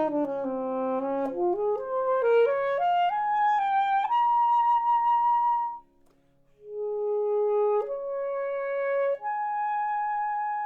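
Alto saxophone playing an unaccompanied passage: it climbs in quick steps to a high note held for about two seconds, breaks off briefly, then plays a few slower long notes.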